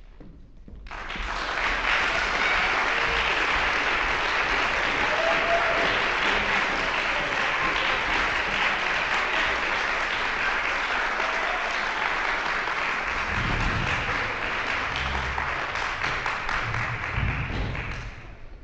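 Audience applause, starting about a second in and dying away just before the end. A few low thumps sound under it in the last few seconds.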